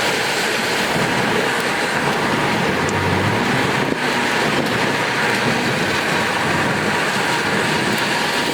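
Steady rushing road and wind noise of a car driving at speed, heard from inside the cabin.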